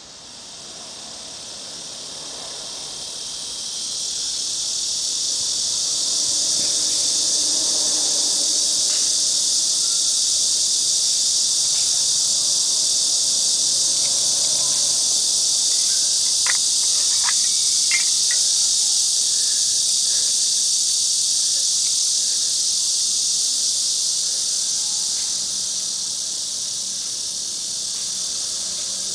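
Loud chorus of cicadas, a steady high buzzing that swells over the first few seconds and then holds. A few faint clicks of wood being handled come about halfway through.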